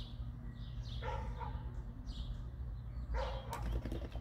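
Boerboel and Serbian Defense Dog barking at each other in several short bursts during rough play, the longest and loudest burst about three seconds in.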